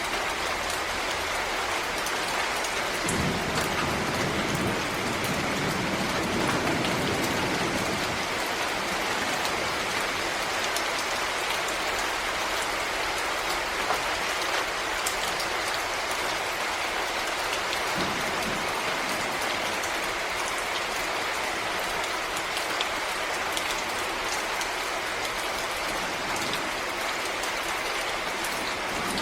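Steady rain falling, a dense patter of drops. A low rumble swells for a few seconds about three seconds in.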